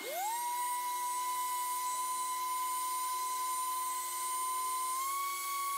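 Milwaukee variable-speed random orbital sander spinning up and then running with a steady whine, a fine Scotch-Brite pad on it scuffing back a coat of polyurethane. Its pitch steps up slightly about five seconds in.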